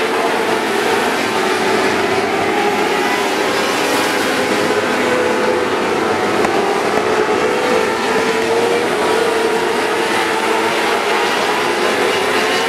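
Several winged sprint cars racing on a dirt oval, their engines running hard together. Their pitches waver up and down as the cars lap the track.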